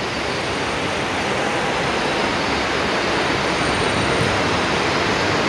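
Steady rumbling noise of a suburban local train running through the station, heard from the underground passage beneath the tracks, growing slightly louder toward the end.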